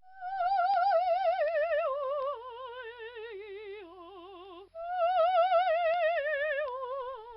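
Music: a single high, wavering melody with heavy vibrato that steps downward, played twice over, with a brief break near the middle.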